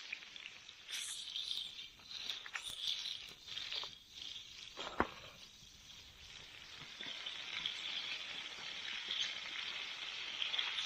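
Pork ribs and potatoes frying in oil in a pan: a steady sizzle with small crackles and pops, and one sharper pop about five seconds in.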